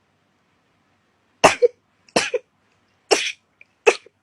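A person sneezing four times in rapid succession, starting about a second and a half in, the sharp sneezes coming less than a second apart.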